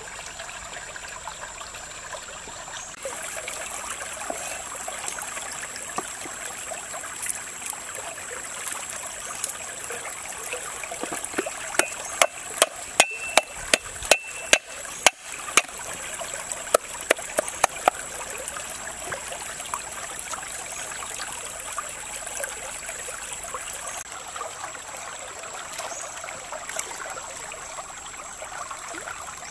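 Shallow stream flowing steadily over rocks, with a run of about a dozen sharp knocks midway: a cleaver chopping garlic on a wooden chopping board.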